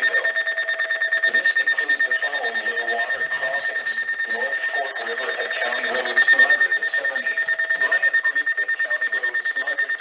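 NOAA weather alert radio sounding its alarm: a rapid, steady beeping in one high tone, the alert for an issued Flash Flood Warning.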